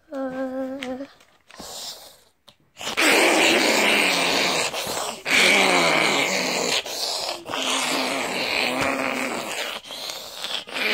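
A person's voice making wordless noises: a short held "ahh" tone at the start, then after a pause about eight seconds of loud, harsh, drawn-out vocal noise with a few short breaks.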